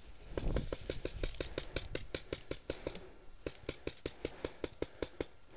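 Paintball marker firing two rapid strings of shots, about six pops a second, with a short break about three seconds in.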